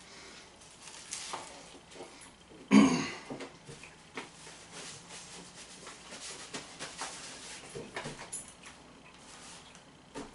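A person eating a large bacon cheeseburger: chewing and mouth noises, with one loud, short throaty sound about three seconds in. After that comes a soft run of rustling as a paper towel is rubbed over the hands.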